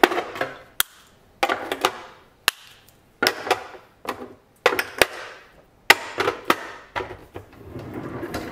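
Spice jars being set down one after another into a drawer organiser, a series of sharp clinks and knocks with short ringing tails.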